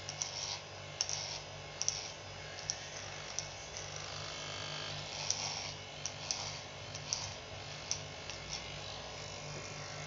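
Electric hair clippers buzzing steadily while being run over the scalp in a buzz cut, with short sharp clicks now and then.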